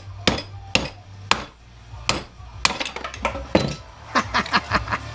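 Sharp knocks of a tool striking the plastic housing of a Clarisonic Mia 2 facial brush to break it open: about a dozen irregular strikes, coming faster near the end.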